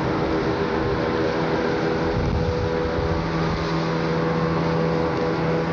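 Tugboat diesel engine droning as the tug and its barge pass close by. A lower steady hum joins in about halfway through, over a steady rushing noise.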